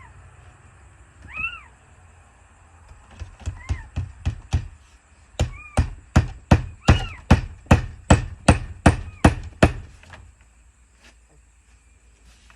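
Hammer driving nails into vinyl siding: a few light taps, then a run of about a dozen harder, evenly paced blows, about two and a half a second, with a few short high squeaky tones among the early strokes. The nails are driven only until they just touch, leaving the siding loose to move.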